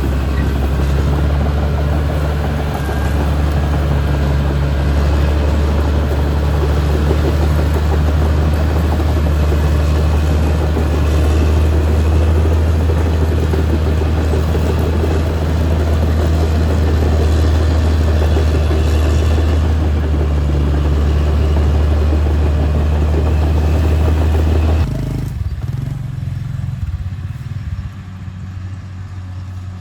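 Caterpillar D6R XL crawler bulldozer's diesel engine running steadily under load, a deep drone with mechanical clatter over it. About 25 seconds in the sound suddenly drops to a lower, quieter rumble.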